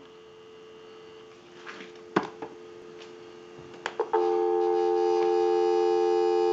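Telephone dial tone from a single slot payphone's handset: a steady two-note hum, faint at first, then much louder from about four seconds in. A few sharp clicks come about two and four seconds in, just before it gets louder.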